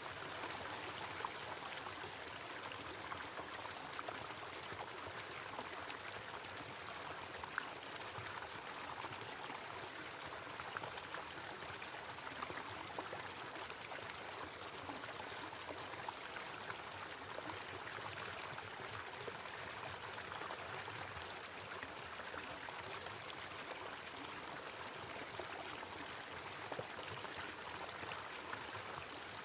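Small waterfall: water pouring and splashing steadily, with a few sharper splashes standing out now and then.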